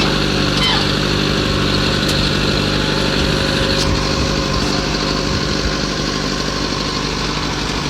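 Tractor engine running steadily at a constant speed while working soil over a repaired drain tile.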